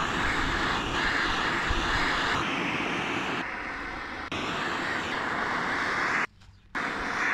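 Kemper gas torch flame hissing steadily. The hiss shifts abruptly in tone several times and drops out for about half a second near the end.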